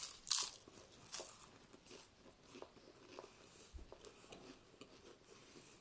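Saltine crackers being bitten into and chewed: two sharp, loud crunches at the very start, then softer, scattered crunching that thins out.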